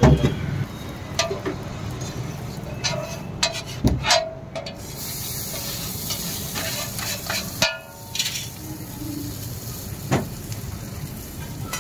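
Flat metal scraper scraping and tapping on a hot iron griddle, several separate strokes, while green masala fries on it; a steady sizzle comes up about five seconds in.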